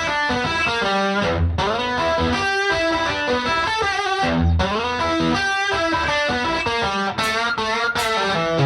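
Background music: a guitar tune with a distorted electric guitar tone.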